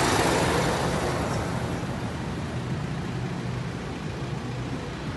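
A large tank truck driving past, its engine and tyre noise loudest at the start and fading over the next two seconds as it moves away, leaving a low steady hum.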